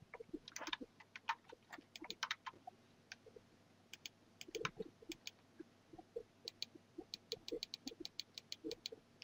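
Computer mouse scroll wheel clicking in quick runs, about six or seven ticks a second in the run near the end, with soft low taps in between.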